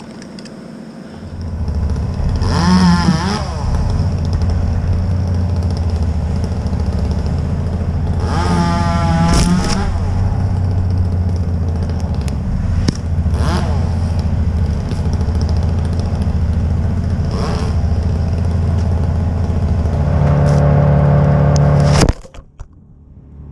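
An engine running steadily, revved up several times, then running hard for a couple of seconds before cutting off abruptly near the end.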